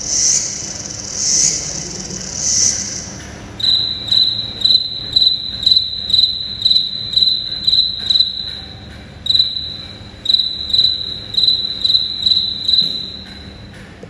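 Recorded insect calls played back by a museum sound exhibit. For the first few seconds a brown bush cricket's high, pulsing call repeats about every half second. Then a Schizodactylus (splay-footed) cricket chirps on one steady pitch about twice a second, pausing briefly twice.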